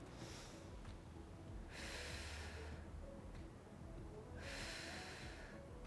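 A woman breathing during a held exercise: two audible breaths, each about a second long, a couple of seconds apart.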